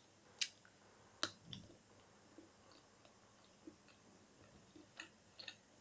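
Scattered short clicks and ticks from eating a chocolate orange segment close to the microphone: mouth smacks and finger handling. Two louder clicks come in the first second and a half, and a few softer ones come about five seconds in.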